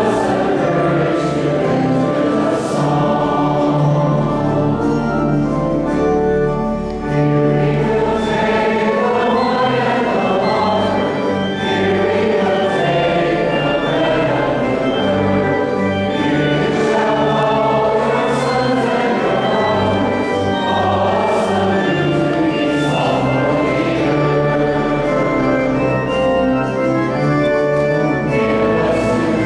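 Choir singing a sacred hymn in parts, with sustained low accompanying notes underneath.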